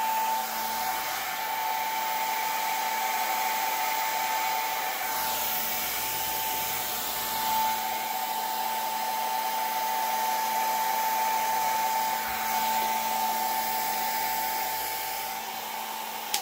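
Handheld Blowzilla hair-dryer-style blower running steadily, blowing air across wet acrylic paint with its concentrator nozzle off. Its airflow carries a constant whine, the level swelling and dipping slightly as the blower is moved over the canvas.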